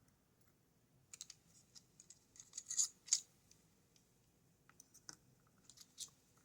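Faint light clicks and scrapes of small metal lock picks and tension tools being handled and set down on a surface, in a cluster from about a second in and again shortly before the end.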